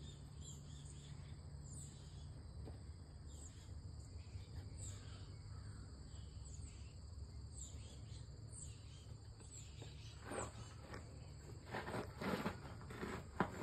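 Outdoor ambience: short, thin, high chirps repeating about once a second over a steady low hum, with several soft rustles and scrapes in the last few seconds.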